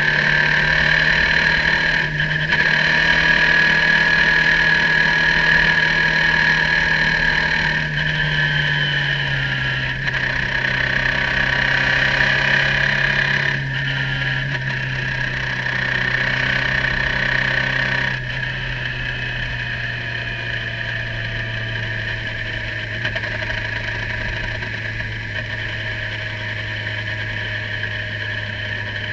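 Radical race car's engine heard from the cockpit, running at moderate revs in sixth gear while the car slows. The engine note sinks slowly in pitch, with small dips in level every few seconds.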